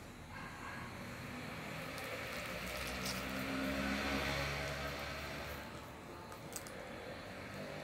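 A vehicle passing by: a low engine hum and a rush of noise swell, peak about four seconds in, then fade away.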